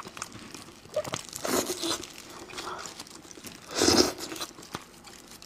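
Close-up eating sounds from a roasted sheep head: meat being torn apart by hand and sucked off the bone, with short crunches and wet mouth noises. The loudest is a brief sucking burst about four seconds in.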